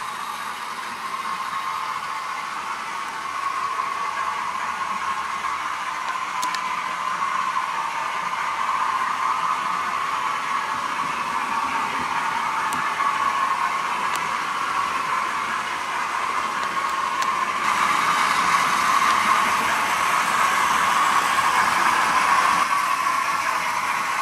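Steady whir of the small electric motors and running gear on a model railway layout, with Faller Car System lorries and a model train running. It grows louder toward the end, with a few faint ticks.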